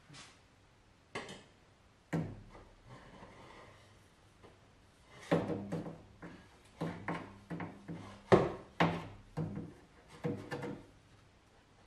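Stainless steel exhaust rear muffler being offered up and pushed onto its pipe by hand under a raised car: metal clunks, knocks and scraping. A few single knocks come first, then a busy run of knocks and scrapes starts about halfway in.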